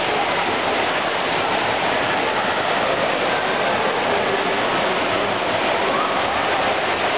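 Steady, echoing din of an indoor swimming pool during a freestyle relay race: crowd cheering mixed with the splashing of swimmers.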